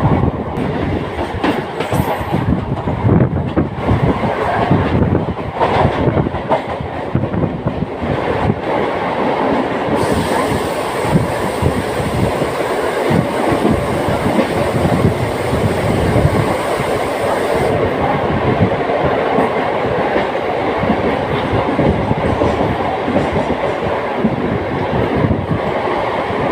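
Non-AC Mumbai suburban EMU local train running at speed, heard from on board: a steady rumble with the wheels clattering over rail joints. A high hiss joins for several seconds, starting about ten seconds in.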